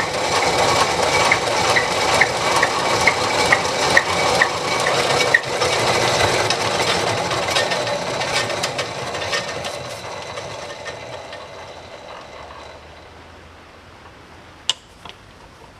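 A motor-driven shop machine running with a regular tick about twice a second, then coasting down to a stop over several seconds, with a sharp click near the end.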